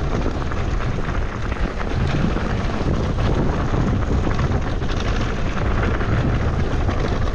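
Mountain bike descending a rough, rocky trail: tyres rolling over loose stones with many small rattles and clicks, over a steady low rumble of wind on the microphone.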